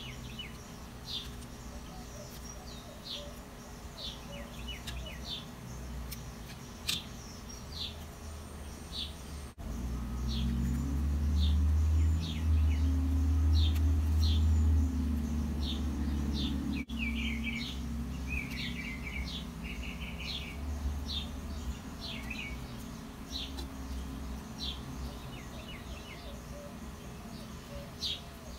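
Small birds outdoors chirping over and over with short, high chirps, and a brief trill about two-thirds of the way through. A loud low rumble swells up for several seconds in the middle and then drops away.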